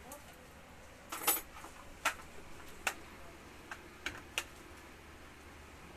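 Hair straightener and comb being worked through the hair: a short clatter about a second in, then scattered sharp clicks as the flat iron's plates snap shut and the comb taps against it.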